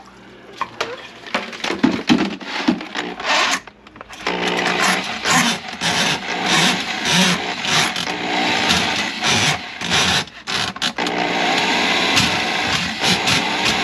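Electric drain auger clearing a clogged kitchen sink drain: a few sharp knocks and clatter, then about four seconds in the motor starts and runs steadily, with rapid knocking and rattling as the cable turns in the pipe.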